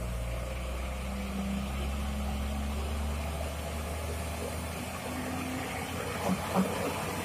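Diesel engine of a Mitsubishi Fuso 6x4 dump truck laden with gravel, running steadily at low revs as the truck creeps along a rutted mud track. Two short knocks come near the end.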